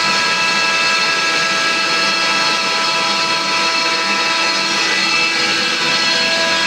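CNC router spindle running and cutting, a steady whine with several high tones over a rushing noise.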